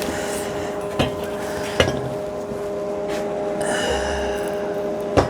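A few sharp metallic knocks and clinks of steel pieces being handled, with a short scrape partway through, over a steady hum.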